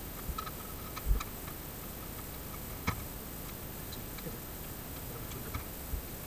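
Scattered light clicks and knocks from handling a painted wooden table leg as it is worked loose from the table. There are a handful of irregular ticks, the sharpest about three seconds in.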